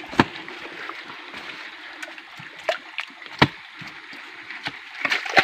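Shallow creek water running over rocks, with a few sudden sharp knocks or splashes, the loudest about three and a half seconds in.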